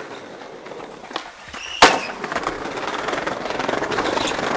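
Skateboard landing with one loud slap just under two seconds in, after a light click about a second in. The wheels then roll on over stone paving with a steady rumble.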